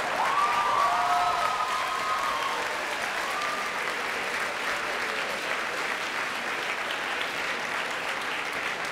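Audience applauding in a large hall, with a high cheer rising over the clapping at the start.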